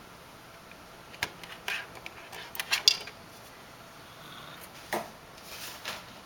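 Handling noise: a click, then a run of clicks and clatter from alligator clips being unclipped and a plastic ESD tray lifted off the table, and a single knock about five seconds in.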